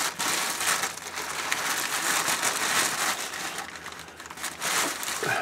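Plastic bag crinkling and rustling around a spin-on oil filter as it is twisted off by hand inside the bag.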